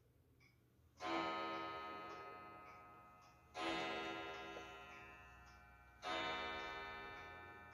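Three bell-like metallic strikes about two and a half seconds apart, each ringing on with many tones and slowly fading.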